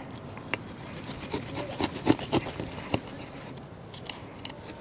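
Knife cutting and sawing through a kelp greenling's flesh and bones on a cooler lid: a string of short scraping clicks and rasps, thickest about one to three seconds in.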